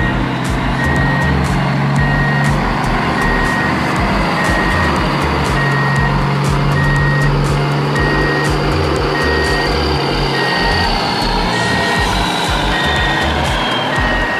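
Truck reversing alarm beeping steadily, about one and a half evenly spaced beeps a second, over a low hum that stops about ten seconds in.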